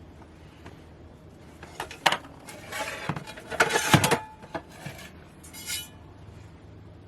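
Cooking gear being handled and set down: a couple of knocks, then a clatter of a pan and utensils in the middle, and a lighter rattle near the end.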